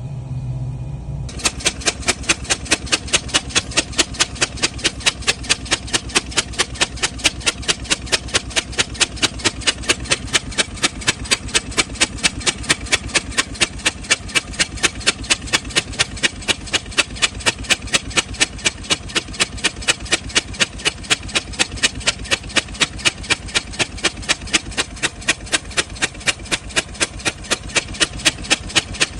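GMC Sierra engine running with a sharp, even tapping or popping about three times a second over a low rumble. It sets in a little over a second in. This is the engine with a misfire problem.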